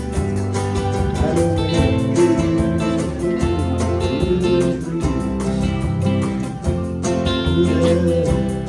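Live band playing an instrumental passage with guitar leading, over a steady bass line and beat, heard through a PA.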